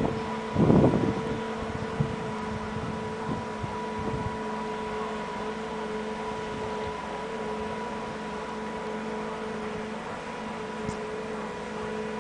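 Tracked snow groomer's diesel engine running at a steady pitch, heard as a constant hum. Wind buffets the microphone in the first second.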